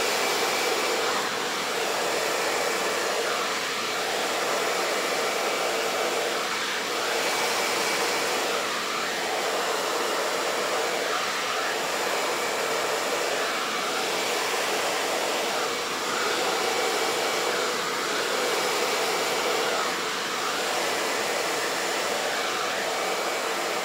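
Handheld hair dryer with a diffuser attachment blowing steadily, drying curly hair. Its rushing sound wavers slightly every few seconds as it is worked up into the curls.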